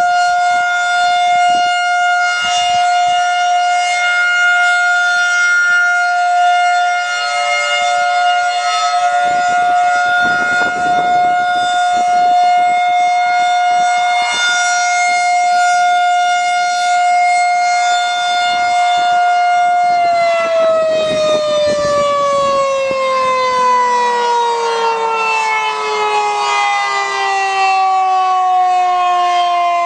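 Federal Signal 2001-130 electromechanical storm siren sounding a steady, loud single-tone wail. About two-thirds of the way through the pitch starts falling smoothly as the siren winds down.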